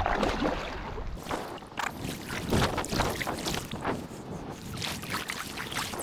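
Water splashing and swishing against a kayak's hull as it is paddled along. Wind rumbles on the microphone for about the first second.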